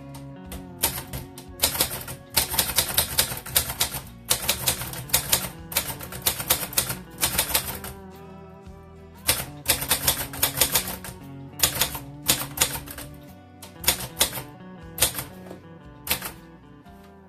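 Japy Script portable typewriter being typed on: quick runs of key strikes, with a break about halfway and then slower single strokes near the end.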